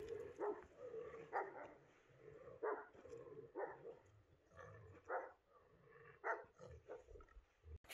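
A dog barking faintly: about six short barks, spaced roughly a second apart.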